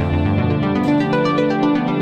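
Electronic background music with synthesizer notes over a steady beat.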